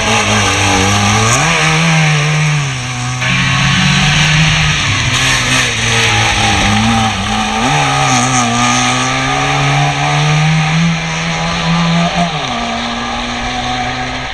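Trabant's small two-stroke engine racing through a slalom, revs rising and dropping again and again as the car brakes and accelerates between the tyre markers, with a buzzy, chainsaw-like note. About twelve seconds in the revs drop and hold steadier as the car draws away.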